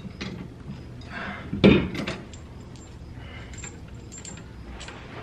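Metal clinks and light taps of bolts and suspension parts being handled and fitted by hand, with one louder clunk a little under two seconds in.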